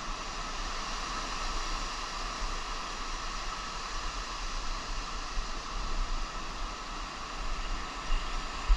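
Ocean surf washing onto the beach in a steady hiss, with wind rumbling on the microphone.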